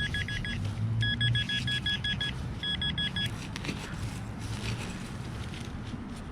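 Minelab Vanquish 440 metal detector sounding off on a buried target: rapid beeps jumping back and forth between a low and a high tone, in three runs over the first three seconds, with a short gap between each run. Rough handling and ground noise runs underneath.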